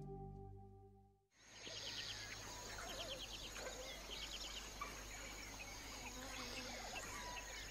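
Soft music fades out over the first second, then an African bush ambience: a steady high insect drone with birds chirping and trilling.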